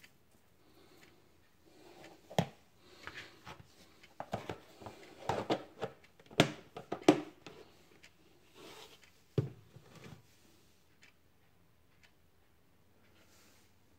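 Frozen French fries being spread by hand on a parchment-lined baking tray: the paper rustles and the hard frozen fries click and knock against each other and the tray. Several sharper knocks stand out, the loudest about six to seven seconds in, and the handling stops after about ten seconds.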